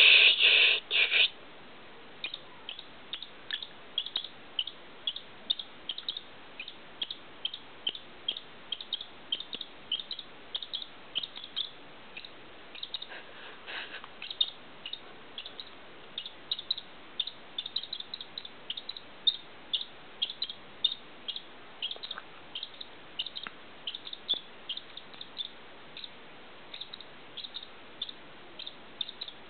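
A squirrel giving short, high squeaks about twice a second, at an irregular pace. A louder burst of sound comes in the first second.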